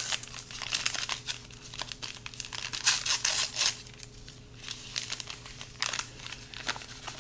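Paper inner pouch of instant pudding mix being torn open and crinkled by hand, a run of crisp crackles that is loudest about three seconds in. Near the end the pouch is tipped and its powder poured out.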